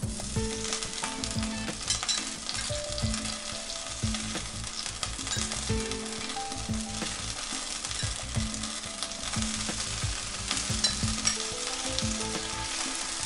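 Hot water added to golden caramelized sugar in a frying pan, the caramel sizzling and spattering steadily as it is loosened into a sauce.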